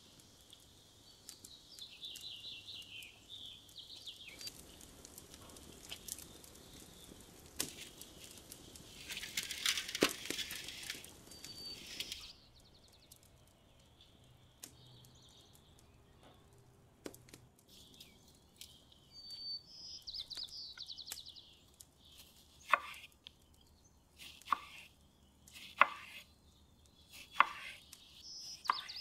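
A kitchen knife slicing on a wooden cutting board, each cut ending in a sharp knock on the board, about every second and a half for the last several seconds. Birds chirp in the background, and there is a stretch of rustling about a third of the way in.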